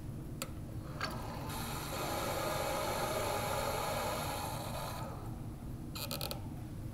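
Deionized water running from a lab tap's hose into a plastic wash bottle, a steady rush that starts a second and a half in and stops about five seconds in. A couple of clicks come before it, and a short burst of rapid clicking comes near the end.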